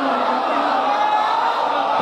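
A man singing a manqabat, an Urdu devotional poem, into a handheld microphone, with the voices of a crowd mixed in.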